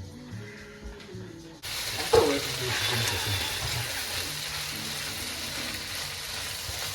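Chicken hearts sizzling in a pot, a steady hiss that starts abruptly about a second and a half in, with a sharp knock just after it starts.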